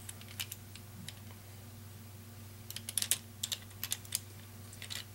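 Plastic Rubik's Cube pieces clicking and knocking as they are handled and fitted back into the cube. The clicks are scattered, with a quick run of them about three seconds in.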